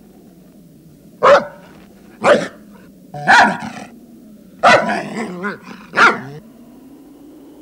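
German shepherd barking five times, about a second apart, a couple of the barks drawn out and ragged.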